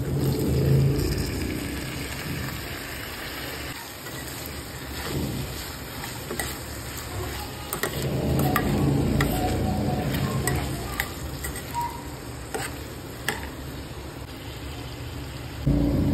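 Cubed raw potatoes dropped into hot oil in a nonstick pan, sizzling, then stirred, with a spoon clicking and scraping against the pan now and then.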